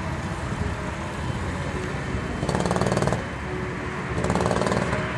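Go-kart engines running around the track, a steady drone that grows into a loud, rapidly pulsing buzz twice, about two and a half and four and a half seconds in, as karts pass close by.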